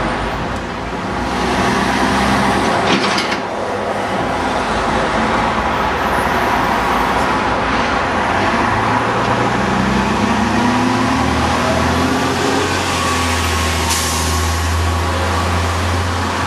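Volvo Olympian double-decker bus with a Cummins diesel engine and ZF automatic gearbox pulling away from a stop, the engine note rising as it accelerates and stepping as the gearbox changes up. A brief hiss of air comes about three seconds in.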